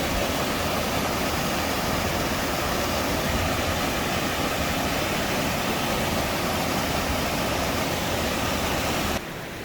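Waterfall: a steady, even rush of falling water that stops suddenly about nine seconds in.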